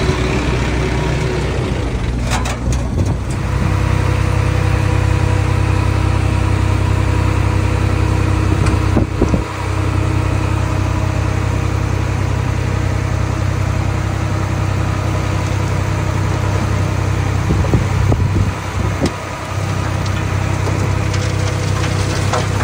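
Diesel engine of a small bulldozer running steadily, with a few brief knocks along the way.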